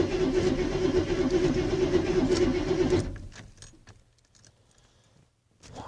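Ford F-150's starter cranking the engine in a pulsing rhythm without it catching, a hard start after the truck has sat for about four weeks. The cranking stops about three seconds in, followed by a few faint clicks.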